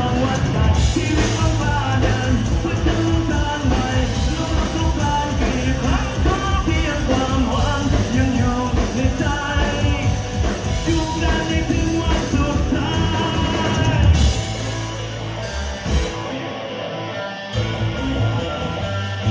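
Rock band playing a Thai rock song with singing and a driving drum beat. About 14 s in the band drops to a quieter passage, and the bass falls out briefly before the full band comes back in.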